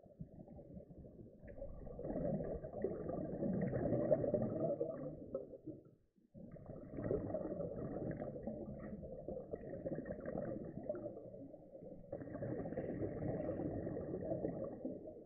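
Muffled underwater sound through a sealed camera housing: a scuba diver's regulator breathing, with long swells of exhaled bubbles a few seconds each, dropping out briefly about six seconds in.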